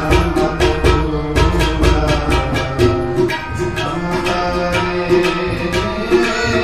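Harmonium holding sustained reed chords while tabla are played in a quick, steady rhythm of several strokes a second.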